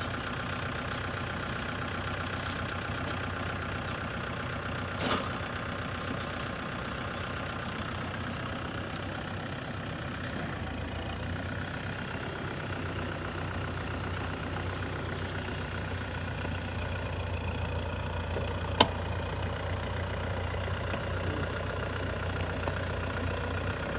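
Kubota M6040 SU tractor's diesel engine running steadily, its low hum growing a little heavier in the second half, with a single sharp knock about three quarters of the way through.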